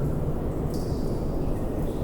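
Wind resonating in a sea cave: a steady low hum over a constant bed of wind and water noise. Water drips plink in the cave, a clear high one about two-thirds of a second in and a fainter one near the end.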